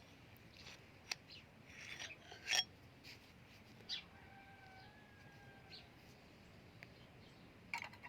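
Faint scattered clicks and a short scrape of small objects being handled, with a faint thin tone held for about a second and a half midway.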